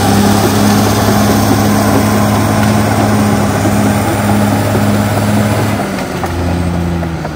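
Caterpillar D6R XL crawler dozer's diesel engine running steadily as the dozer pushes brush and felled trees with its blade. About six seconds in the engine note drops lower.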